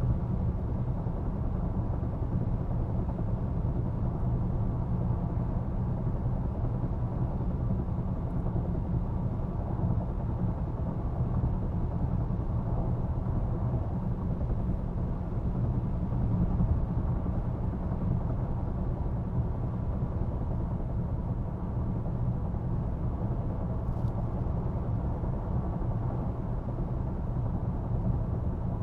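Steady road and tyre noise inside the cabin of a 2023 Range Rover Velar driving at highway speed: an even low rumble with some wind noise.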